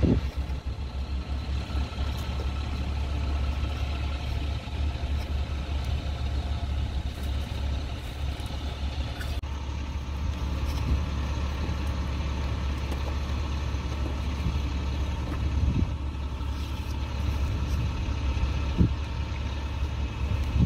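Delivery truck engine idling: a steady low drone.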